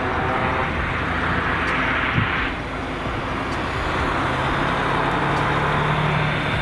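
Twin Garrett TPE331 turboprop engines of a Cessna 441 Conquest II running at high power, a steady engine and propeller drone. A low hum in it grows stronger from about four seconds in.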